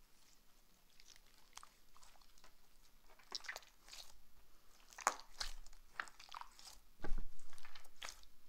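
Slime being squeezed and stretched by hand: an irregular run of wet clicks and pops, louder from about three seconds in and loudest from about seven seconds in.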